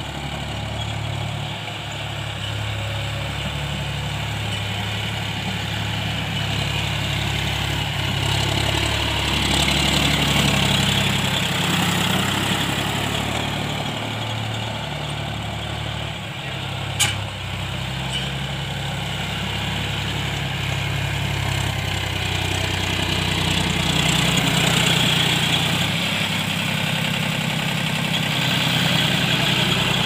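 John Deere 5045 D tractor's diesel engine running steadily under load as it drags a spring-tine cultivator through the soil. There is one sharp click about halfway through.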